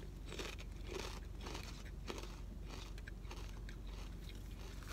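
Close-up chewing of crunchy kettle-cooked potato chips, a steady run of crunches.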